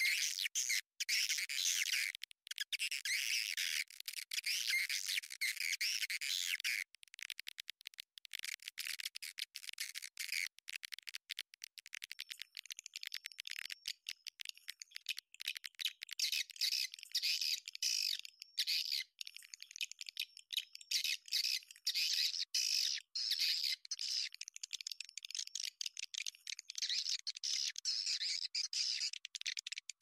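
Swiftlets twittering in a dense, fast high chatter, with a stretch of rapid dry clicking about a quarter of the way through. It is a swiftlet lure call ('suara tarik walet') of the kind played to draw swiftlets into a nesting house.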